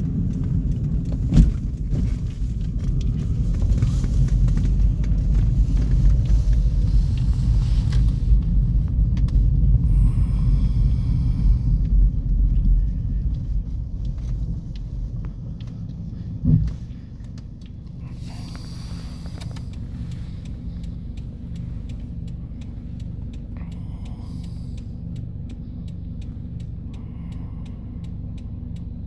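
Norfolk Southern freight train rolling past: a heavy low rumble, loudest in the first half, with a steady run of clicks as the wheels pass over the rail. A single thump about halfway through, after which the rumble settles lower.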